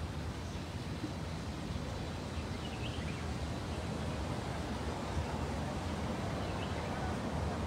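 Outdoor ambience: a steady, uneven low rumble of noise, with two faint high chirps about three and seven seconds in.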